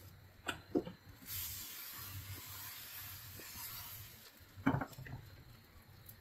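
Appam batter hissing softly on a hot non-stick kadai as the pan is swirled to spread it up the sides, after a couple of light clicks. About four and a half seconds in, a knock as the pan is set back down on the gas burner grate.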